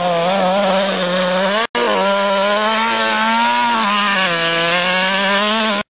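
HPI Baja 5B SS RC buggy's two-stroke petrol engine running loud and steady, its pitch wavering up and down with the throttle. The sound drops out for an instant about a second and a half in, then cuts off abruptly near the end.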